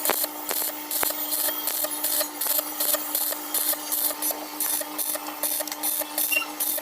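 MIG welder stitch-welding sheet metal, crackling in short bursts about three times a second over a steady electrical hum.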